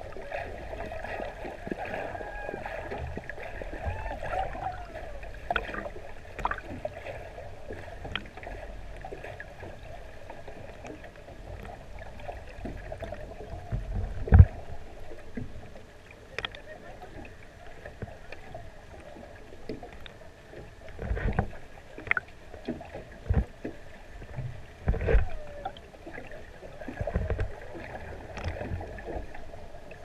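Underwater sound beside gray whales: water noise with faint wavering tones, which are taken for gray whale calls, and a few low thumps, the loudest about halfway through and several more near the end.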